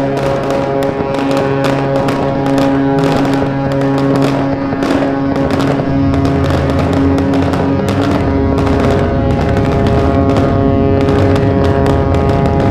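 Music with held chords that shift about four and six seconds in, over a dense, irregular crackle of sharp pops.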